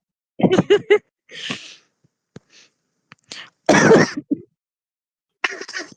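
Smoker's coughing fit: a quick run of coughs about half a second in, a breath drawn in, a heavier cough near the middle trailing into two short ones, and another cough near the end.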